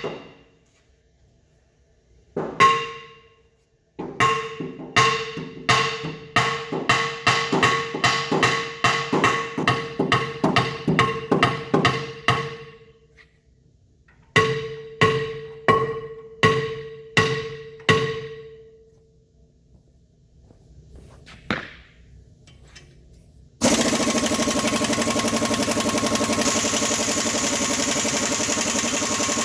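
Hammer blows ringing off a cast-iron disc held under tension by a three-arm puller, in runs of about two strikes a second, to shock the keyed, stuck disc loose. Near the end an air impact wrench starts running steadily on the puller's screw.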